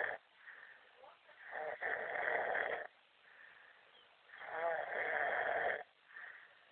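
A man snoring heavily in his sleep: two long snores about three seconds apart, each lasting about a second and a half, with quieter breaths between them.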